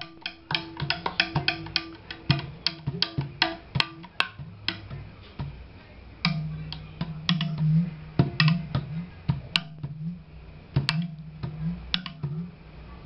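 Celempung, a Sundanese bamboo tube zither, its bamboo strings struck in a quick, uneven patter. The strikes grow sparser after about four seconds, while low resonant tones from the bamboo tube swell and fade through the middle.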